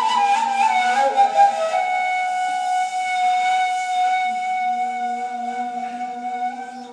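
Two neys (Turkish end-blown reed flutes) playing an improvised taksim together. A moving melodic line runs for about the first two seconds and settles into one long held note that slowly fades, with a lower held note sounding beneath it from about halfway.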